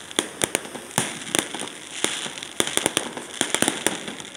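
Aerial fireworks bursting: a dozen or so sharp bangs at irregular intervals, over a steady background of crackling.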